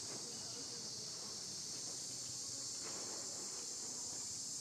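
Steady, high-pitched chorus of insects droning without a break, with a faint, brief lower sound about three seconds in.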